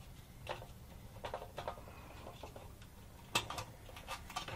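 Scattered small metallic clicks and clinks as a Harley-Davidson fuel pump and filter assembly is worked by hand into the fuel tank opening, with a sharper click a little past three seconds in.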